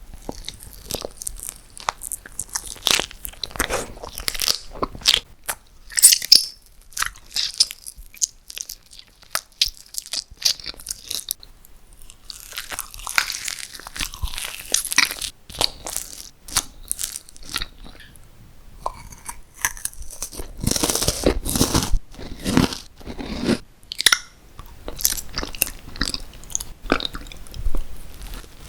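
Close-miked eating: bites and crunchy chewing in irregular bursts, with a short lull partway through and a denser run of chewing near the end.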